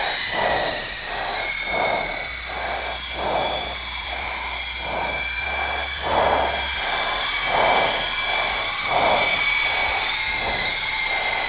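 Syma S033G toy RC helicopter flying: its small electric motors and gears give a steady high-pitched whine, with a pulsing rush under it about twice a second.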